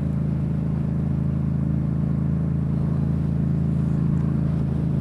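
Yamaha MT-07 parallel-twin engine running steadily at a constant speed while riding, with an even hiss of wind and road noise over it.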